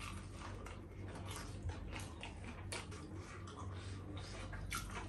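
Chewing and crunching on crispy breaded fried chicken fillet: many irregular crisp clicks of the mouth, over a steady low hum.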